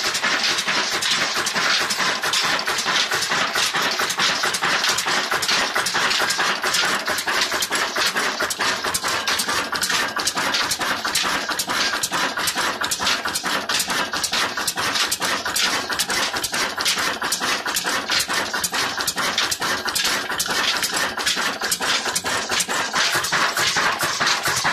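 Old Ruston Hornsby diesel engine running steadily while it drives a flour mill (atta chakki) through belts: a fast, even mechanical clatter with no let-up.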